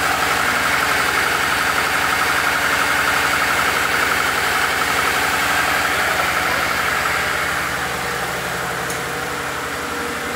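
Freshly swapped Subaru EJ25 turbocharged flat-four boxer engine idling steadily on its first run, while its cooling system is bled of air through a filler funnel. It gets slightly quieter from about eight seconds in.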